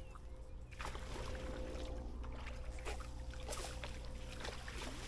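Water splashing and sloshing in irregular bursts, starting about a second in: a hooked fish thrashing at the surface close to the bank as it is drawn in to the net.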